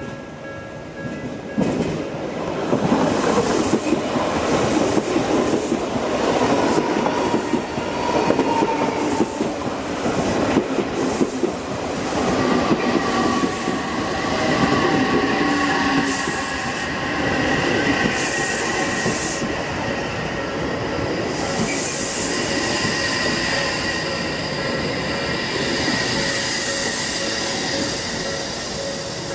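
Odakyu Line electric train passing at a level crossing, starting about two seconds in: wheels running loud over the rails, with the steady whine of its traction motors over the noise.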